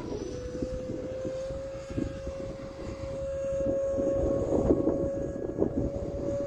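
Radio-controlled model F-86 Sabre jet flying past overhead: a steady whine that edges up in pitch and grows louder as it comes closer. Gusts of wind rumble on the microphone.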